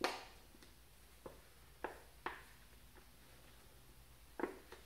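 Faint handling noise from a homemade plastic-bottle gas mask and an elastic strap being fitted to the head: a short rustle at the start, then a few sharp, scattered clicks and taps, with a quick double click near the end.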